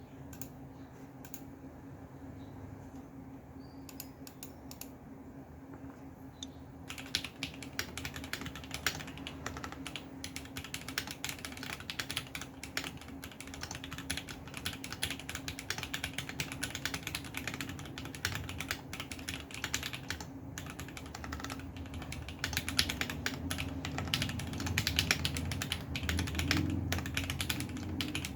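Typing on a 980 Mini mechanical keyboard fitted with lubed and filmed Jwick Red linear switches: a few scattered keystrokes at first, then fast continuous typing from about seven seconds in. A steady low hum runs underneath.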